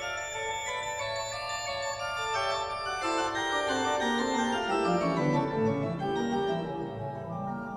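Background music on an organ-like keyboard, held chords with a run of notes stepping down in pitch through the middle.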